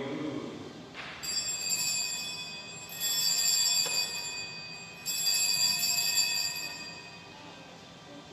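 Altar bells rung three times, each ring sounding for about two seconds, marking the elevation of the consecrated host at the consecration.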